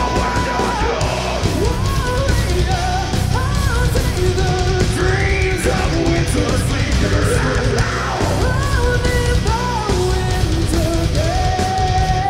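Heavy metal band playing live: distorted guitars, bass and drums, with a melody line held and bent over the top.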